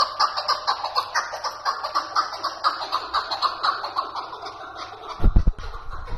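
Caged chukar partridge calling: a fast, evenly repeated run of short notes that weakens after about four seconds. A few low thuds about five seconds in are the loudest sound.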